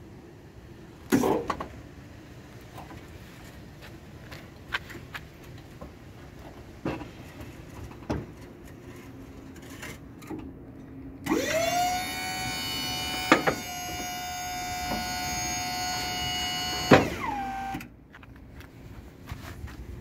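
Electric hydraulic pump motor of a truck's power tailgate lift running for about six seconds: it spins up quickly to a steady whine, then stops with a falling whine as it winds down. Before it come a loud metal clank about a second in and a few lighter knocks from the lift.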